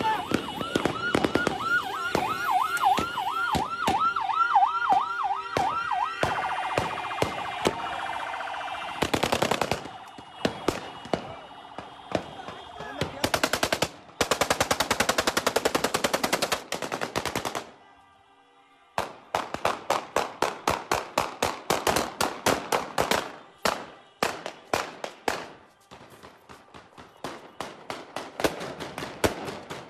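Celebratory gunfire: long rapid bursts and strings of shots from automatic weapons, several seconds at a time with short breaks. Over the first six seconds a siren wails up and down about twice a second.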